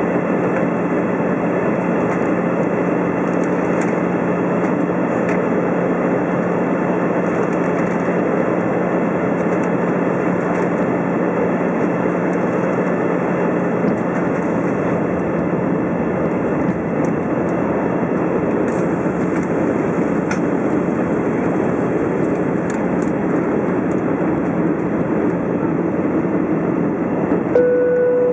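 Cabin noise inside an Airbus A320 airliner on descent: a steady rush of airflow and engine noise, with a low steady hum that fades out about halfway through. About a second before the end a short single chime sounds.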